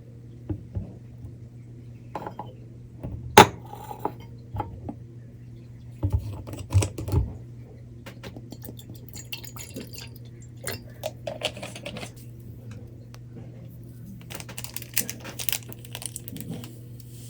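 Kitchenware being handled: dishes, glasses and spoons clinking and knocking, with one sharp clink about three seconds in and a cluster of small clicks near the end, over a steady low hum.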